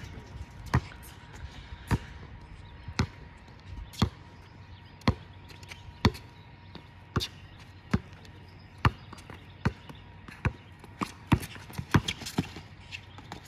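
Basketball being dribbled, sharp bounces about once a second, coming a little quicker near the end.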